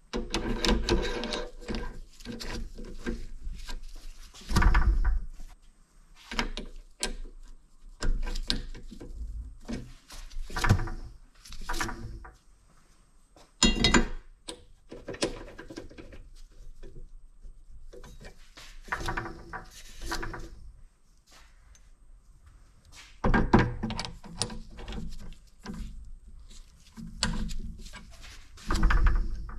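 Irregular metal clinks, knocks and rubbing as a mini lathe's three-jaw chuck and its steel jaws are handled and turned by hand, with a few louder knocks against the bench.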